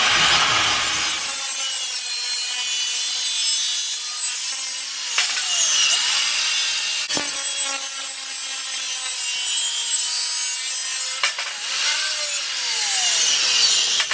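A power saw cutting through steel square tubing: a continuous high-pitched grinding screech with ringing, shifting tones, which cuts off abruptly at the end.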